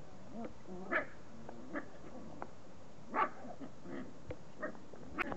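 Beagle puppies play-fighting: a string of about six short, high yips, the loudest a little past three seconds in, over low wavering grumbles.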